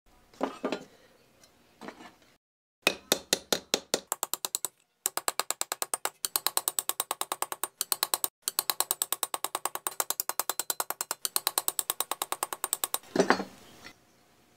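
Hammer blows on a small wooden block set on a pressed-steel toy truck part clamped in a bench vise, a fast even series of sharp taps at about five or six a second in three runs, working the steel into shape. A few handling knocks come first, and a short scrape comes near the end.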